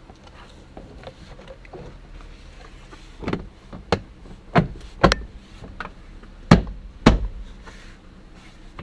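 Newly installed seat belt being worked to test it: a run of sharp clacks and knocks, about seven in four seconds, the loudest a little past halfway.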